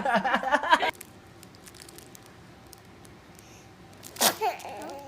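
Laughter and little squeals for the first second, then a quiet room. About four seconds in, a baby sneezes once, sharply, and makes small high cooing sounds straight after.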